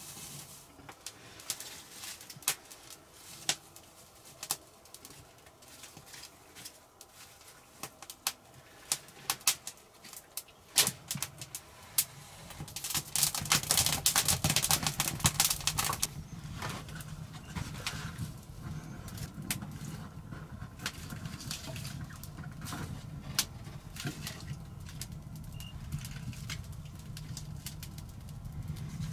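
Wood fire being revived from embers in a stone hearth: scattered crackles and snaps at first, then a loud rushing flare for a few seconds as the flames catch, settling into a steady low rumble with ongoing crackling.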